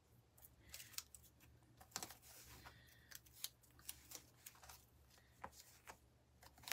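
Faint scattered clicks and rustles of hands working masking tape and fabric on the back of an embroidery hoop.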